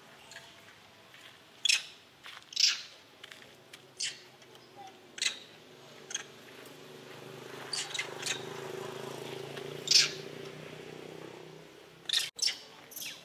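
Short, sharp high-pitched animal squeaks, roughly one every second, some in quick pairs. Under them a faint low hum swells in the middle and fades near the end.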